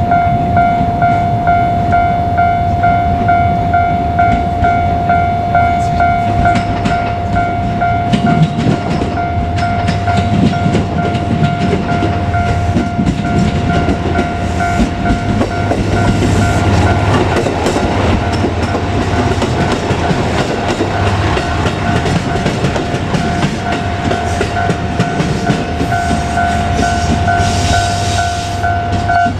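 Japanese level-crossing alarm ringing, a steady repeating electronic bell tone, while a JR Kyushu KiHa 200 diesel railcar passes with engine rumble and wheel clatter over the rail joints. The alarm cuts off suddenly near the end.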